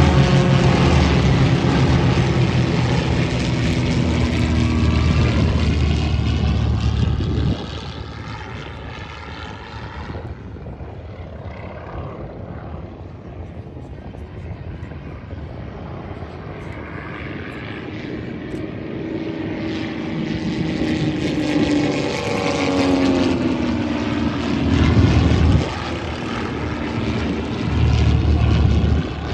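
Piston engine of a propeller aerobatic display plane droning overhead. It is loud at first, falls away after about seven seconds, then grows again, its pitch sliding down as the plane passes.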